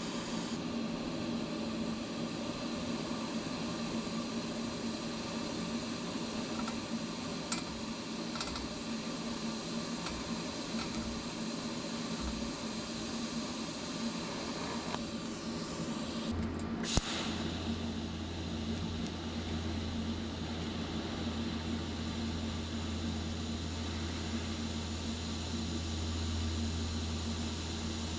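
Steady electrical hum and hiss of a TIG welding setup while welding a stainless steel exhaust. About sixteen seconds in a deeper hum comes on, with a sharp click a moment later.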